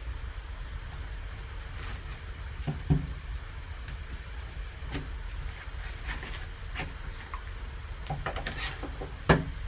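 Handling a cardboard collector card box and its foam insert: rubbing and scraping of foam and cardboard with small clicks, and two sharp knocks, one about three seconds in and a louder one near the end as the box lid comes down. A steady low hum runs underneath.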